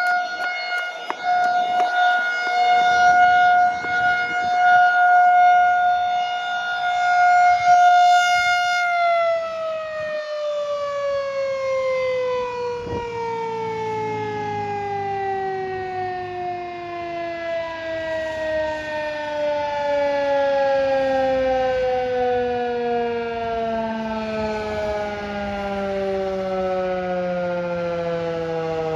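Federal Signal 2001 electromechanical outdoor warning siren sounding the tornado-drill alert. It holds a steady tone, then about nine seconds in shuts off and winds down, its pitch falling slowly and steadily.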